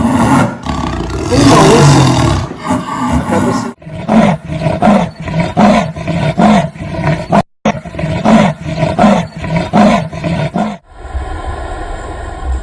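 Big cat roaring: long, loud roars for the first few seconds, then a run of short roars about two a second, with a brief break midway. About a second before the end it cuts off suddenly to a steady, quieter sound.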